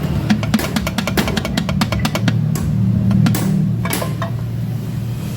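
Music with drums and plucked guitar over a steady low hum, with a quick run of sharp clicks in the first two seconds or so and a few single knocks later.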